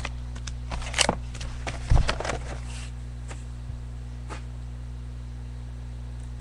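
Handling noise: a few clicks and rustles, with a heavy low thump about two seconds in, then only a steady electrical hum.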